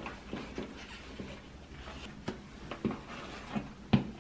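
Footsteps in sneakers on a hard tiled floor: a string of irregular light taps and scuffs, the loudest near the end.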